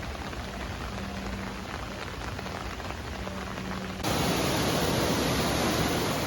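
Steady hiss of rain and running water; about four seconds in it jumps suddenly to a louder, fuller rush of water, as from a waterfall close by.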